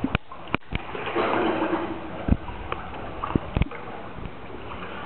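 Pool water splashing and sloshing around swimming dogs, louder for about a second near the start, with several sharp knocks scattered through it.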